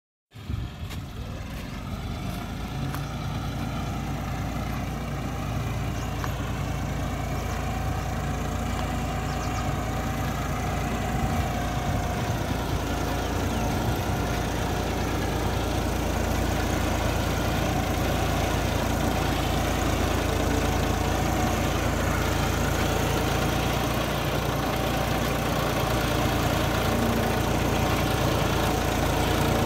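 John Deere 5050E tractor's three-cylinder diesel engine running steadily under load while pulling a cassava planter, growing gradually louder as it approaches.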